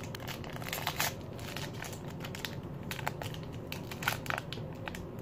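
Crinkly foil wrapper of a LOL Surprise doll's accessory packet being handled and torn open by hand: irregular crackling, with a few sharper crackles.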